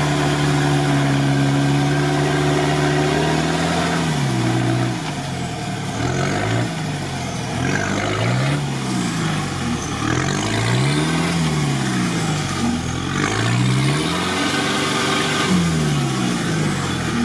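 Engine of a UAZ off-road truck running steadily, then revved up and down several times, about every two seconds, as it struggles out of a muddy pit on rear-wheel drive alone with the front hubs not engaged.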